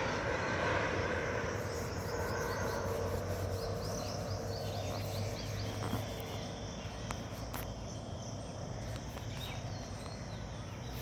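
Outdoor ambience: a passing aircraft's engine drone fading out over the first few seconds, then high chirping of crickets and birds over a steady background hum.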